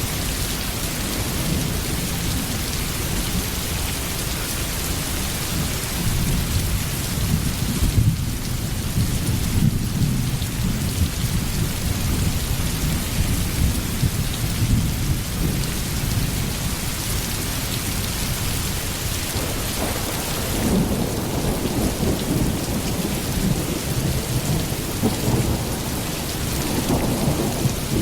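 Steady heavy rain falling, with low rolling thunder that swells and fades several times.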